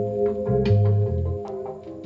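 Music from a record played through a Bal-Ami valve jukebox amplifier on test after repair: held chords over a bass line with light percussion strikes.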